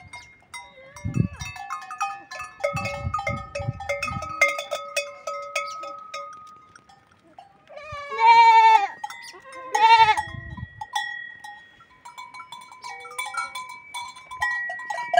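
Goats bleating, two loud wavering calls about eight and ten seconds in, over the clanking and ringing of the goats' neck bells.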